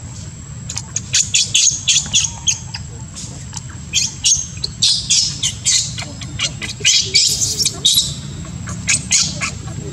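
Newborn baby monkey screaming in bouts of short, high-pitched squeals: distress cries while its mother pins it down.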